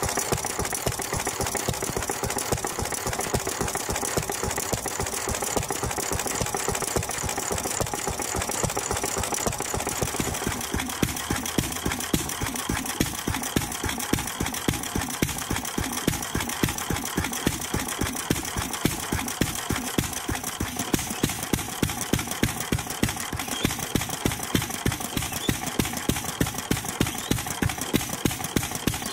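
1926 International Harvester M Type 3 hp hit-and-miss stationary engine running, pulling a light load, with a steady run of sharp, evenly spaced firing beats. The beats stand out more clearly from about ten seconds in.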